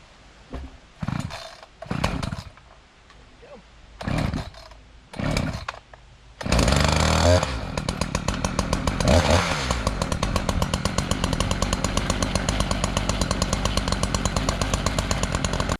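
Chainsaw being pull-started: four short bursts from the starter pulls, then the engine catches about six seconds in and keeps running with a steady, even firing rhythm.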